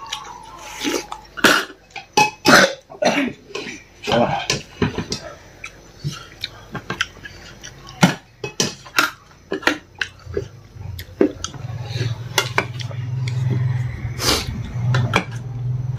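A person eating close to the microphone: chewing and mouth smacks with clinks of dishes and cutlery. In the last few seconds a low steady drone joins in.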